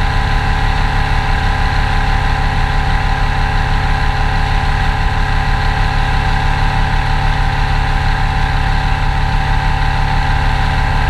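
Powered parachute engine and propeller running steadily in cruising flight, a constant loud drone with no change in pitch.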